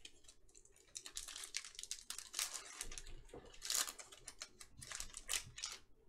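Thin plastic wrapper of a 2020 Panini Absolute Football card pack being crinkled and torn open by hand: a rapid run of crackles that starts about a second in.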